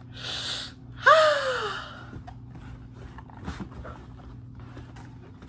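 A breathy exhale, then a loud voiced sigh-like exclamation with a falling pitch about a second in. Faint knocks follow as a cardboard shoe box is handled.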